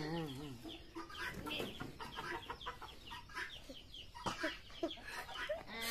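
Domestic hens clucking, with short calls repeating throughout. Right at the start, a short pitched cry falls away within about half a second.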